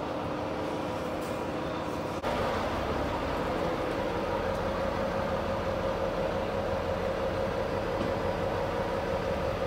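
Heavy truck engines idling, a steady drone with a steady hum. About two seconds in it steps up a little louder and a steady mid-pitched tone comes to the fore.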